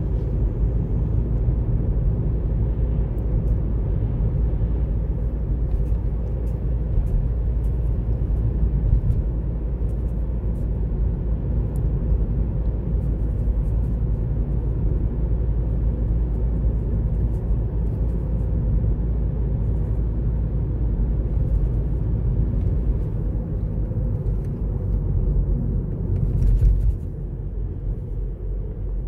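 A car driving along a road: a steady low rumble of engine and tyre noise, with a brief louder swell near the end before it settles slightly quieter.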